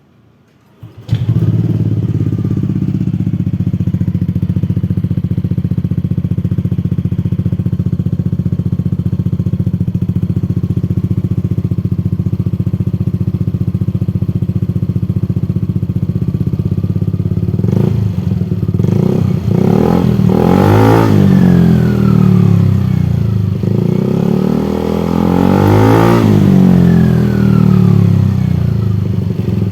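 Yamaha Lexi scooter's single-cylinder engine breathing through an aftermarket Arrow exhaust with its dB killer fitted. It starts about a second in and idles steadily, then is revved twice near the end, gently, the pitch rising and falling each time.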